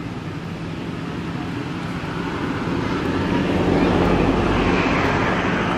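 A motor vehicle passing by: engine hum and rushing noise that swell to their loudest about four seconds in, then fade.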